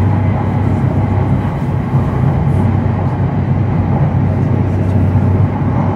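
Steady running noise of an E7 series Shinkansen heard from inside the passenger cabin: an even low rumble with a broad rushing sound over it.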